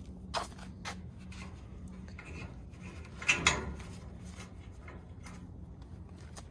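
Clicks and light knocks of ramp clips being fitted to an aluminium UTV deck, with a louder rattle about three seconds in.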